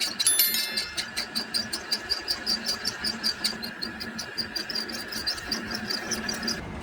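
A small power tool running with a steady whine and rapid, even ticking, about six or seven ticks a second. It stops abruptly shortly before the end, with a brief high squeal just after the start.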